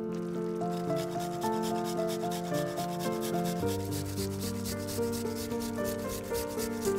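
A garlic clove being grated on a small metal hand grater, a fast run of rasping strokes starting about a second in, over soft background music.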